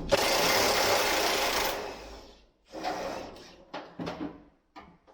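Power tool running in one loud burst of just under two seconds with a fast rattle, then a shorter burst and a few sharp knocks.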